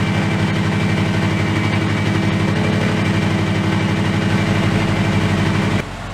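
Bentley Continental GT3-R's 4.0-litre twin-turbo V8 idling steadily through its Akrapovic titanium exhaust. It cuts off suddenly shortly before the end.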